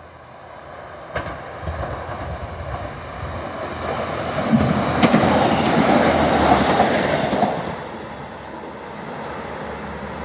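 A pair of Class 153 single-car diesel multiple units approaching and passing at speed. The rumble of the underfloor diesel engines and wheels on rail builds up, peaks with wheels clacking over the rails as they go by about five to seven seconds in, then fades as they pull away.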